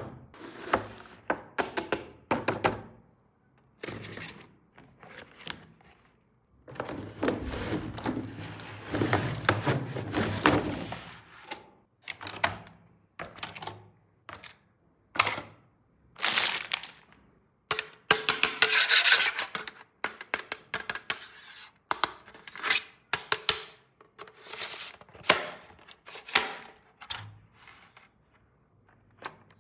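Small plastic toys and their packaging handled by hand: irregular clicks, taps and knocks as pieces are picked up and set down, with two longer stretches of rustling packaging about a third of the way in and again past the middle.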